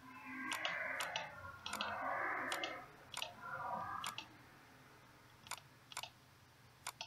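Computer mouse clicks, about a dozen at irregular intervals, as mesh faces are picked one by one with shift and right-click. Over the first four seconds two spells of soft hissing noise come through, louder than the clicks.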